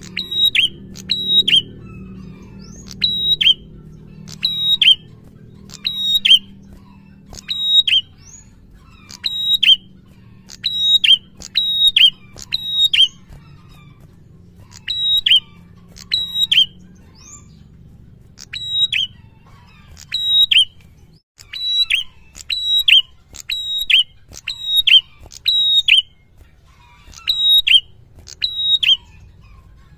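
A caged tailorbird singing loud, sharp, high chirps. They come in quick pairs or triplets, repeated about every second and a half.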